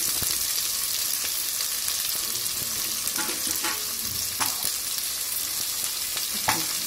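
Freshly added chopped onions sizzling in hot oil in a pot as they begin to fry, stirred with a steel ladle. The ladle knocks against the pot a few times.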